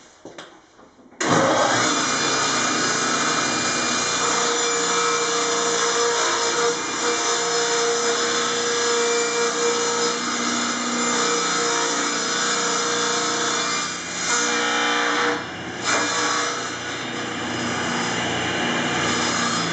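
Delta table saw switched on about a second in, its motor and blade running at a loud, steady whine while ripping a sheet of plywood, with a couple of brief dips in level late on.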